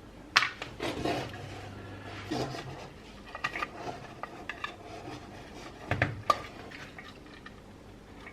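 Metal parts of an old table fan being handled during repair: irregular clinks, knocks and light scraping, with the sharpest knocks just after the start and about six seconds in.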